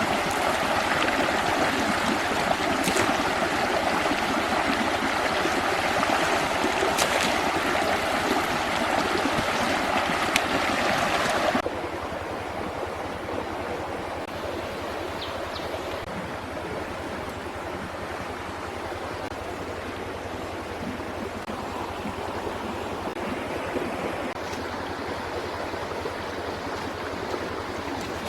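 Steady rushing of running water with a few faint clicks, dropping abruptly to a quieter steady rush about twelve seconds in.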